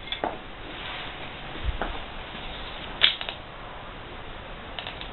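Scattered light clicks and knocks over a steady hiss, with a low thump about two seconds in and the sharpest click about three seconds in.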